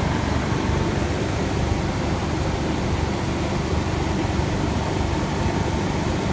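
1990 Chevrolet Suburban engine idling, a steady low rumble.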